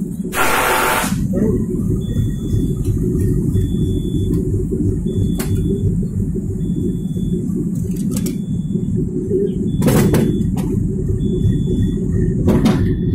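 Steady low rumble of a standing locomotive running, with a short hiss near the start. A brief high beep repeats about once a second, and a couple of sharp knocks come near the end.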